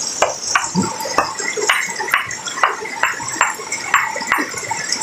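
Small sledgehammer striking a boulder over and over, about two blows a second.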